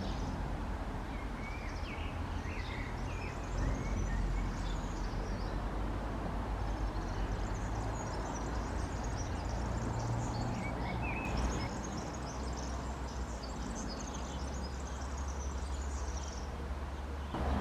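Outdoor ambience: small birds chirping and twittering over a steady low background rumble.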